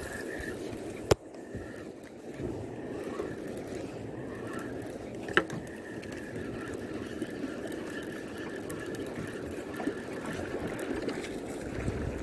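Steady rushing noise of wind and water around a small boat at sea, with a faint steady high tone and two sharp clicks, one about a second in and one about five seconds in.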